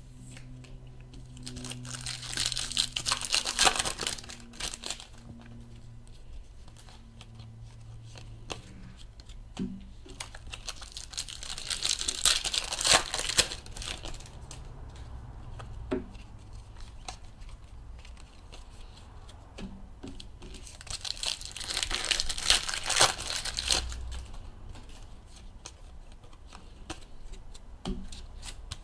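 Foil trading-card pack wrappers being torn open and crinkled by hand, in three bouts about ten seconds apart, with quieter handling of cards and wrappers between them.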